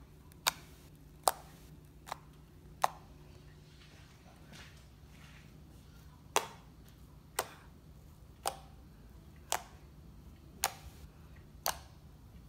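Fluffy slime made with glue and shaving cream being poked and pressed with the fingertips. It gives sharp little pops and clicks about once a second as trapped air escapes, with a quieter, softer squish a third of the way through.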